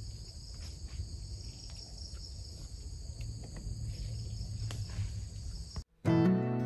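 A steady, high-pitched chorus of insects shrilling, several tones held together without a break, over a low rumble. It cuts off about six seconds in, and acoustic guitar music takes over.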